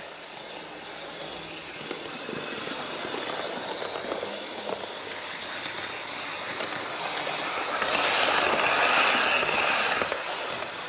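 Model trains running on track: a steady whirr and rattle of motor and wheels that grows and is loudest from about eight seconds in, as a unit comes close.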